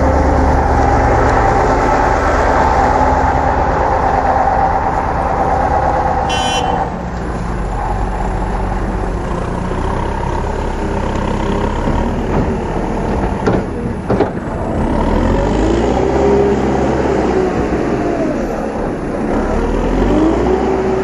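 The diesel engine of a JCB 4CX backhoe loader running hard under working load. It is loudest for the first six seconds, a few knocks come about two-thirds of the way through, and near the end the engine note rises and falls as it revs.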